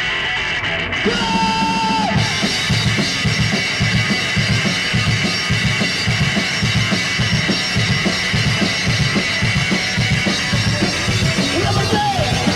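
Live rock band starting a song. A guitar holds a bending note, then the drum kit comes in about two seconds in and the full band plays a fast, loud beat.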